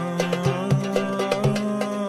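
Instrumental background music with a quick, steady beat of about four strikes a second.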